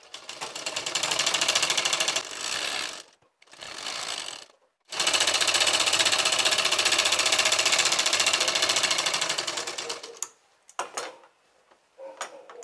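Sewing machine stitching a seam in fabric: a short run that speeds up, a brief second run, then a long steady run of about five seconds, ending with a few clicks about ten seconds in.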